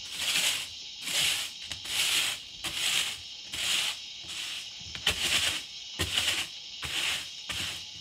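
Straw broom sweeping a wooden plank floor: a bristly swish with each stroke, a bit more than one stroke a second, with a few light taps of the broom on the boards.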